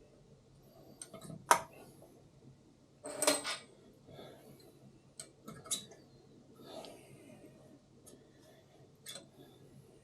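Metal clinks and taps of steel valves being handled and dropped into the valve guides of a Cummins diesel cylinder head: scattered single clicks, with one longer metallic rattle a few seconds in.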